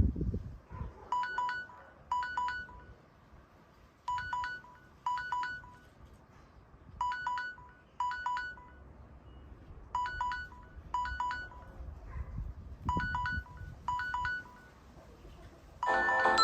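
Mobile phone ringtone for an incoming call: a trilling electronic double ring, two short bursts about a second apart, repeating every three seconds. Near the end a different, louder melody starts.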